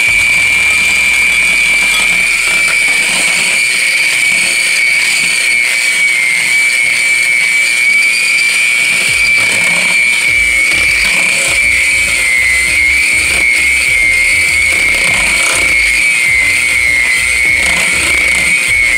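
Electric hand mixer running, its beaters working flour into cookie dough: a loud, steady high whine from the motor that wavers slightly in pitch later on.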